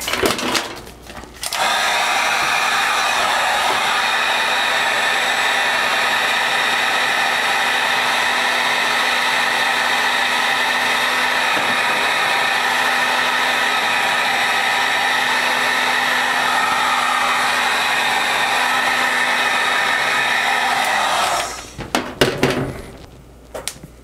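Wagner electric heat gun running steadily, shrinking heat-shrink tubing over a soldered wire splice; it switches on about a second and a half in and cuts off a couple of seconds before the end. Under the even blowing noise there is a faint steady hum.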